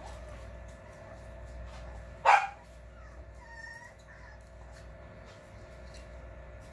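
A four-week-old puppy gives one short, sharp bark a couple of seconds in, followed about a second later by a few faint squeaks.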